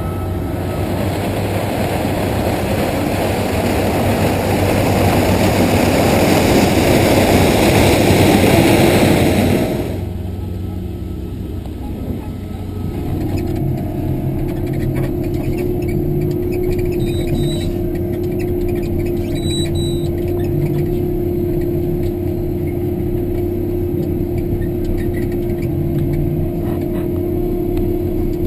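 Vervaet self-propelled sugar beet harvester at work. For about ten seconds its engine and lifting machinery are heard up close as a loud rushing din. Then, from inside the cab, the engine is a steadier drone, with a steady whine joining about thirteen seconds in.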